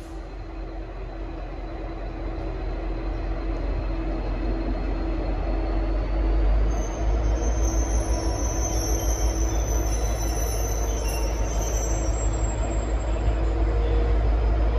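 V/Line N class diesel locomotive departing with its train, its EMD two-stroke diesel running with a steady hum that grows louder as it comes closer. High wheel squeal rises over the running for several seconds in the middle.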